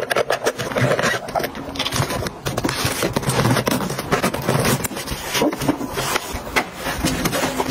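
Plastic makeup items clicking and rustling as they are packed into a fabric makeup bag, then the bag's zipper being pulled shut.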